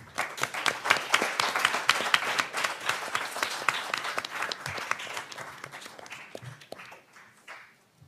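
Audience applauding, a roomful of people clapping that swells at once and tapers off over the last few seconds.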